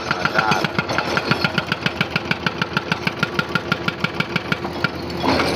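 Excavator-mounted hydraulic rock breaker hammering on rock in a fast, even train of blows, about eight a second, over the excavator's running diesel engine; the hammering stops about five seconds in.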